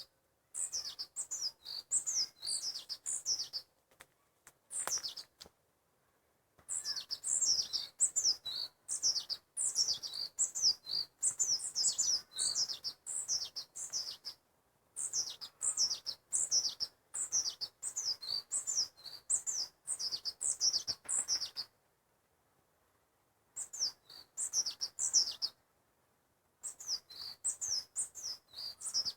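A small songbird singing rapid series of high, quick downward-sliding chirps, in runs of several seconds broken by short pauses.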